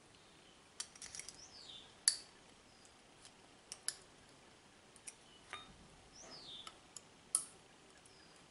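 Irregular sharp metal clicks and taps of small revolver lockwork parts being handled and pressed into a Colt Walker's frame while trying to seat the hand. A bird calls twice with a short falling whistle.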